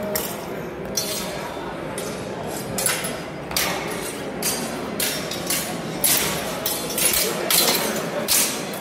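Steel training longswords clinking and clashing from many sparring pairs in a reverberant sports hall: irregular sharp strikes, several close together near the end, over a background of voices.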